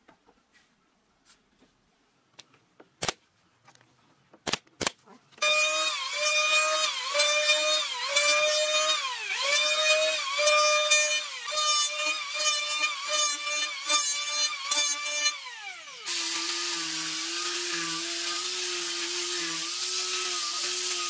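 A few knocks of wooden trim pieces being set in place, then an electric hand planer running, its whine dipping in pitch over and over as it cuts the wood, and winding down after about ten seconds. An angle grinder fitted with a sanding pad then takes over with a steady hum under the hiss of sanding.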